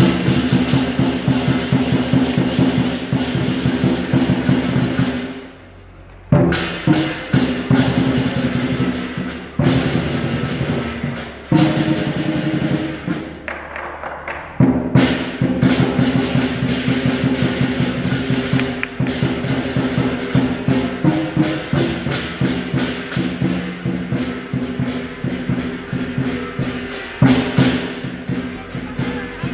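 Lion dance percussion band playing a fast, driving beat on drum, cymbals and gong. It stops briefly twice and starts again.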